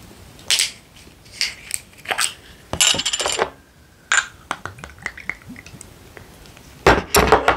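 The metal screw cap on a green glass soju bottle is twisted open, its seal giving a run of sharp clicks and crackles, then soju is poured into a small glass. A few louder glass knocks come near the end.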